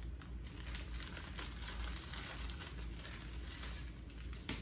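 Clear plastic zip bag holding a pair of sunglasses crinkling faintly and irregularly as it is handled, with a few small clicks.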